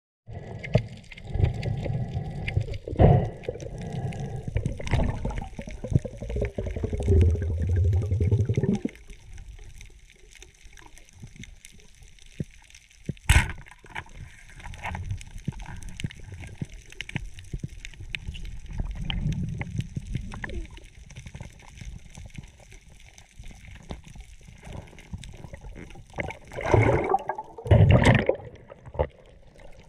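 Underwater sound picked up by a diver's camera over a coral reef. Water rumbles and sloshes against the housing in heavy low surges for the first nine seconds, then settles to a faint, steady fine crackling. One sharp crack comes about 13 seconds in, and two loud sloshing surges come near the end.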